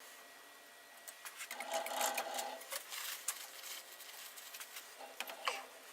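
Wooden pipe parts being handled and pushed together by hand, with faint irregular clicking and scraping that is busiest about two seconds in.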